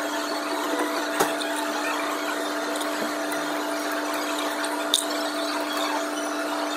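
Electric coffee grinder's motor running with a steady hum, with two sharp knocks, about a second in and just before five seconds in.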